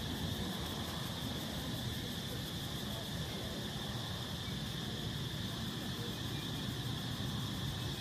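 Steady outdoor ambience: a continuous high insect drone over a low, even rumble.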